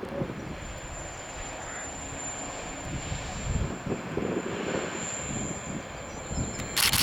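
Class 143 and 142 Pacer diesel railbuses running along the line, a steady rumbling noise with a thin high whine held throughout. A short loud hiss comes right at the end.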